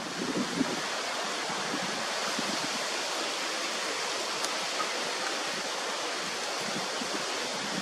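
Steady wind, heard as an even hiss, with low buffeting of the microphone in the first second.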